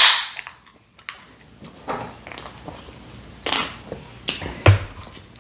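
A can of Coca-Cola snapping open with a short fizzing hiss that fades within half a second. A couple of gulps follow after a few seconds as the soda is drunk.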